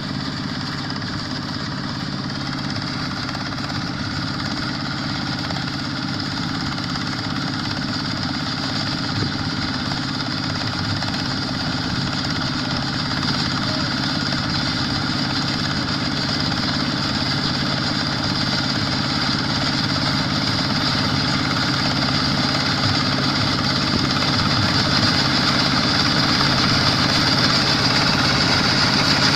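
Quick H-140R combine harvester running steadily, its Kubota diesel engine and machinery working, growing gradually louder throughout.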